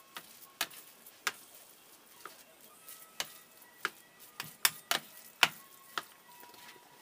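Plastic rice paddle knocking against a stainless steel tray while cutting and mixing vinegared sushi rice, making about nine sharp, irregular clicks. The loudest clicks come just after the middle.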